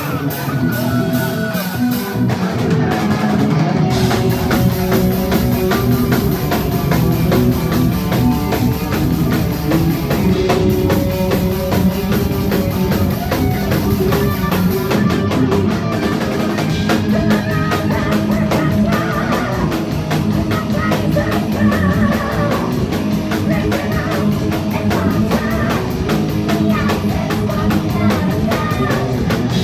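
Live heavy metal band playing loud on stage: drum kit, distorted electric guitars and bass guitar, with the full band coming in hard about four seconds in.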